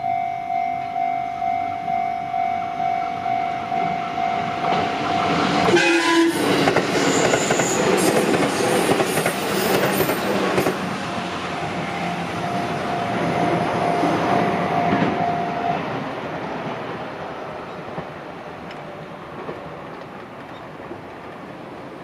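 Japanese level-crossing warning bell ringing at about two strokes a second, then a JR Tokaido Line electric train passes through the crossing from about six seconds in, with a brief horn blast as it arrives and loud rumbling, clattering wheels for about ten seconds. The bell stops and the train noise dies away near the end.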